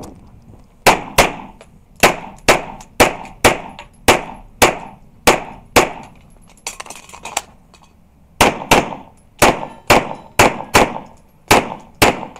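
Rapid handgun fire, mostly in quick double shots, each ringing briefly off the walls of an indoor range. The shots come in two strings split by a pause of about two seconds midway.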